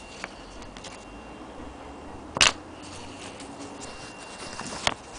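Handling noise from a hand-held recording phone: a sharp knock about two and a half seconds in and a smaller one near the end, with light rustling between.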